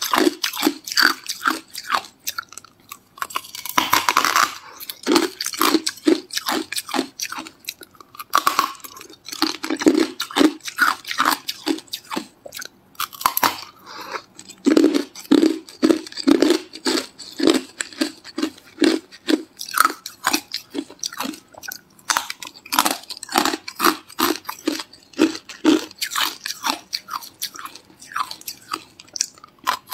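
Hard, frosted chunks of ice being bitten and chewed close to the microphone: sharp crunching and cracking in quick runs, with short pauses between bites.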